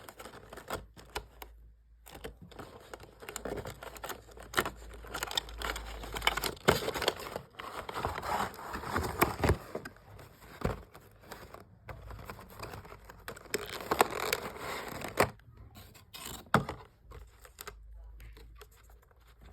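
Packaging being handled and opened: crinkling and tearing, with scattered sharp clicks and knocks. It grows busier through the middle and thins out near the end.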